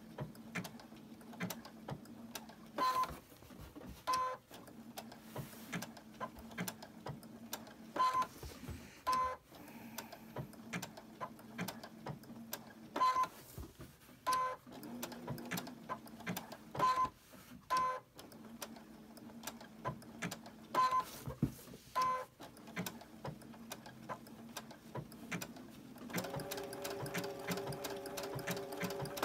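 Sewing machine stitching an applique blanket stitch slowly in short runs, its needle clicking over a low motor hum. Pairs of short electronic beeps about a second apart come every four or five seconds, and the motor tone rises and steadies near the end.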